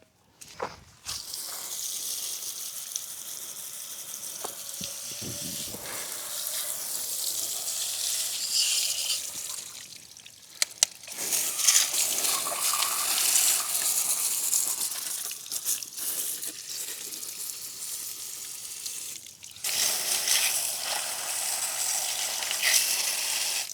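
Garden hose spraying water onto a motorcycle chain to rinse off chain cleaner, as a steady hiss. The spray stops briefly about ten seconds in and again near twenty seconds, then resumes.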